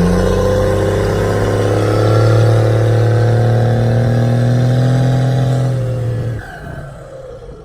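5.9-litre 12-valve Cummins diesel pulling hard through a straight exhaust stack, heard inside the cab with the windows open: a loud, deep drone that climbs in pitch, holds steady for about six seconds, then falls away as the throttle comes off.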